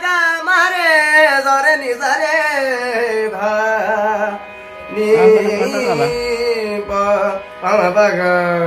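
A young man singing a slow, ornamented melody in long sliding notes with much pitch wavering, with a short break about four and a half seconds in.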